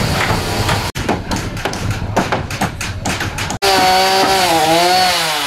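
Spliced building-site sounds: a small engine running with knocks, then after an abrupt break a run of irregular hard knocks, then after another abrupt break a chainsaw running, its pitch dipping and rising.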